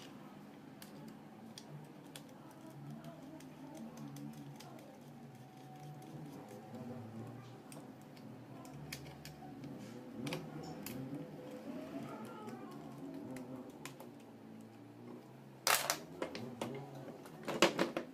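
Light clicks and ticks of hands working at a car alternator's plastic rear cover, then two loud knocks near the end as the alternator is handled and turned over.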